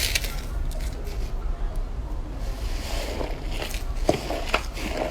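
Slime being squished and worked by hand, with wet sloshing and a run of sharp clicking pops in the second half.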